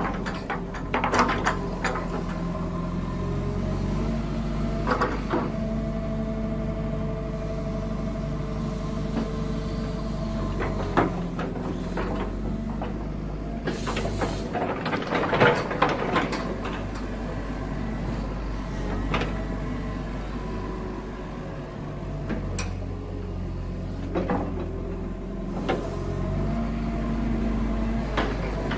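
Kobelco SK135SRD hydraulic excavator running steadily, with scattered metal clanks and knocks from the machine, several in a cluster about halfway through.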